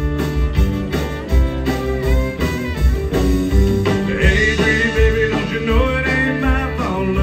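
Live country band playing an uptempo song: fiddle, strummed acoustic guitar, electric guitar and a drum kit keeping a steady beat. About four seconds in, a higher, bending melody line comes in over the band.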